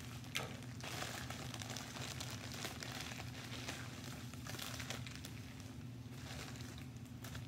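A plastic poly mailer and the plastic-bagged kits inside crinkling and rustling as they are torn open and handled, with a sharp snap just under half a second in. A steady low hum runs underneath.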